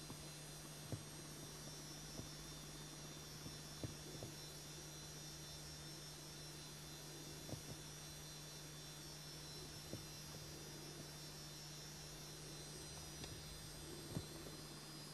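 Faint steady electrical hum with hiss, and a few soft clicks scattered through.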